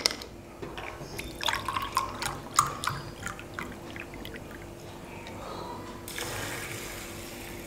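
Water being poured from a drinking glass onto uncooked rice in an anodized aluminium cooking vessel. There are scattered drips and clinks at first, then a steady pouring stream from about six seconds in.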